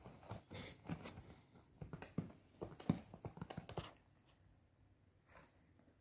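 Small cardboard box rustling and scraping as a kitten squirms inside it, a quick run of irregular taps and scuffs that stops about four seconds in, with one more soft rustle near the end.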